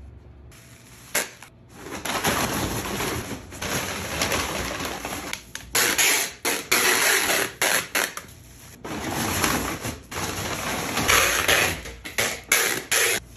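Cardboard boxes being sealed with packing tape: several long rips of tape pulling off the roll, each stopping suddenly, with short crackles and rustles of packing paper between them.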